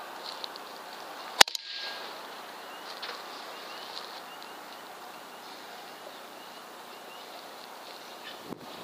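A single air rifle shot, a sharp crack about a second and a half in, followed at once by a couple of smaller knocks, over a faint steady hiss.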